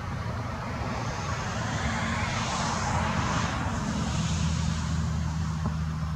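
Engine noise of a passing vehicle that swells, peaks about three seconds in and fades, over a steady low hum.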